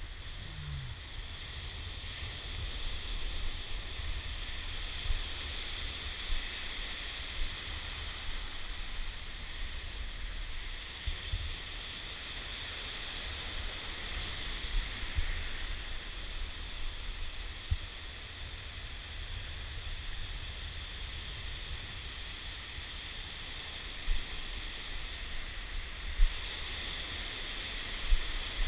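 Ocean surf washing steadily around the wader, with wind buffeting the microphone in low gusts and a few sharp thumps.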